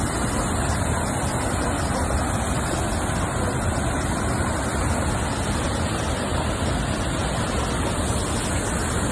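Floodwater from a full reservoir pouring over a small dam's concrete spillway and churning into whitewater below: a steady rush of water.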